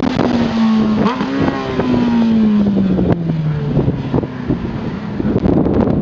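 Suzuki GSR 600 with a custom exhaust passing at speed, its inline-four engine note falling steadily in pitch as it goes by and pulls away.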